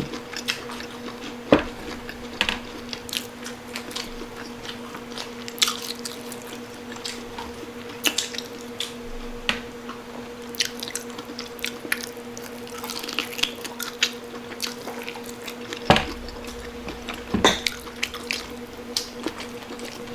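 Close-up eating sounds: wet chewing and lip smacking, a run of irregular sharp clicks, while crispy pata is eaten, with a few louder knocks. A steady low hum runs underneath.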